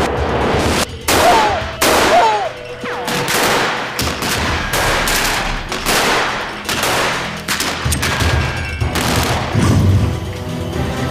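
Gunfight sound effects: many gunshots fired in quick, irregular succession over background music, thinning out near the end.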